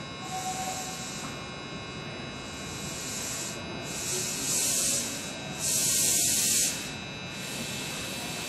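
Hanshin 1000 series electric train standing at a platform: a steady hum with several thin high tones from its onboard equipment. Then two loud bursts of compressed-air hiss, the first about four seconds in and the louder second about six seconds in, lasting roughly a second each.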